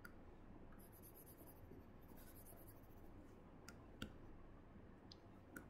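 Near silence: faint room tone with a few light clicks and two brief patches of soft scratching, a stylus tapping and sliding on a pen-tablet screen. The loudest click comes about four seconds in.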